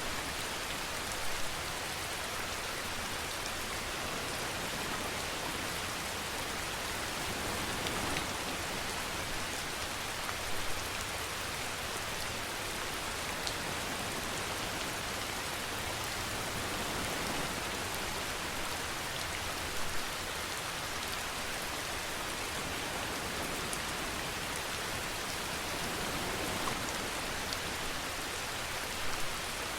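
Steady rain falling, an even hiss of drops on a surface, with a few louder drop hits standing out now and then.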